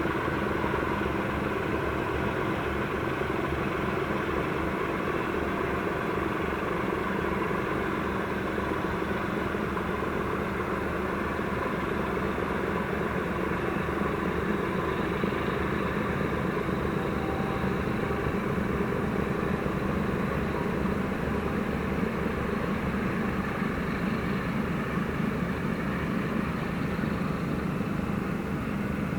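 Steady mechanical drone with a low hum and an even roar, unchanging throughout.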